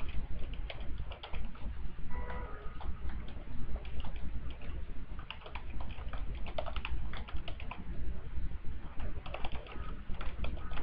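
Computer keyboard typing in irregular bursts of keystrokes, with short pauses between the bursts.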